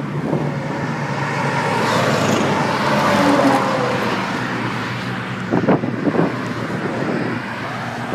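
Road traffic noise: a motor vehicle passing, swelling to its loudest about three seconds in and then fading, over the steady rush of wind and road noise from riding a bicycle. A couple of sharp knocks come about five and a half seconds in.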